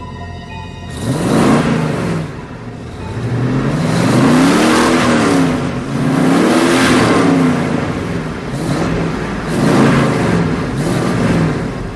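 Car engine sound effect, revved hard several times, each rev rising and then falling in pitch, starting about a second in.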